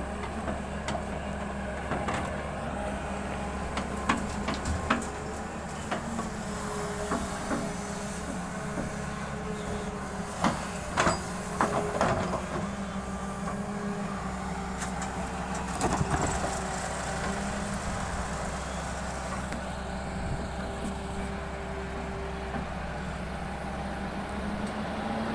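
Hyundai 220LC crawler excavator's diesel engine running steadily while it digs and loads soil. A whine comes and goes as the arm and bucket move, and there are sharp clanks and knocks, clustered about four seconds in and again around eleven seconds.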